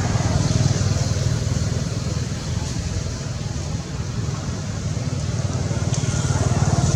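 A motor vehicle engine running steadily with a low, even rumble.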